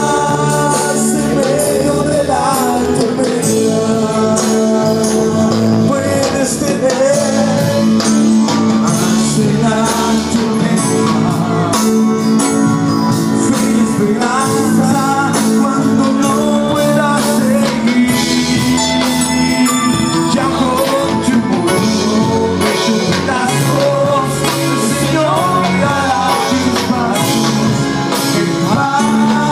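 Song in Spanish with a lead singing voice over instruments and a steady percussion beat of close-spaced strokes.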